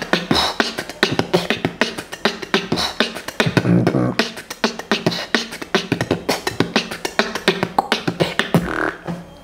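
A man beatboxing: a fast run of vocal percussion, sharp clicks and pops in a steady beat, with a short low hummed bass note about three and a half seconds in. The beat stops just before the end.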